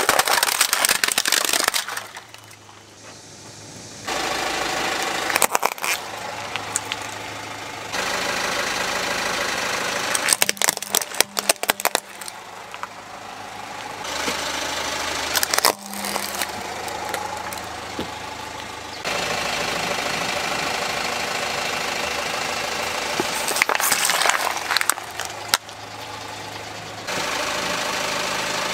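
Car engine running while a tyre rolls over plastic toys, crushing them with sharp cracking and crunching in short clusters. The sound changes abruptly several times as one crush gives way to the next.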